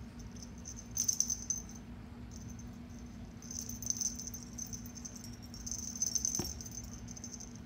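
Cat wand toy with beads and feathers rattling and jingling in three short bursts as a kitten bats and bites at it, over a steady low hum.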